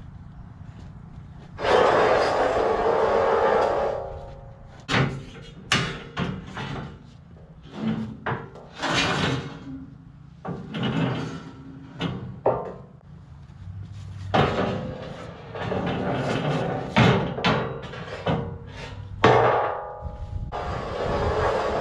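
Steel sawmill track sections being slid and set down on steel I-beams: a scraping slide about two seconds in, then a series of irregular metal clanks and thuds. Background music plays underneath.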